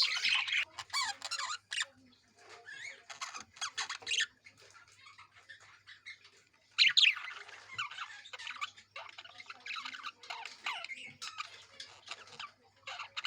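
Caged budgerigars chattering and squawking in bursts, with the loudest squawks at the start and again about seven seconds in.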